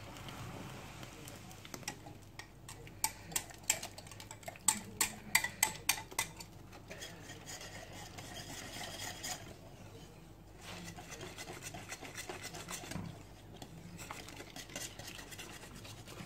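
Wire whisk stirring a flour-and-harira soup mixture into water in a stainless steel pot: a steady swishing stir, with a quick run of about ten metal clinks against the pot near the middle.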